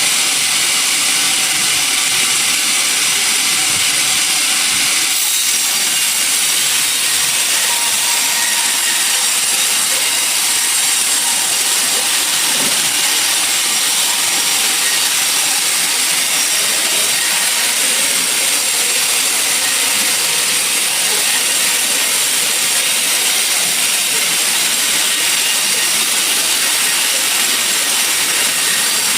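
Sawmill saw cutting through a log: a steady, unbroken high-pitched hiss of blade through wood, with a slight change in tone about five seconds in.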